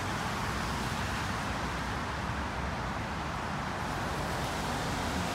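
Steady outdoor street noise: an even hiss over a low rumble, like distant traffic, with no distinct events.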